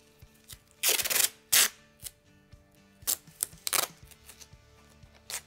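Painter's masking tape being pulled off the roll and pressed along the edges of a wooden rifle stock. There is a longer rasping pull about a second in, then several short sharp pulls and tears.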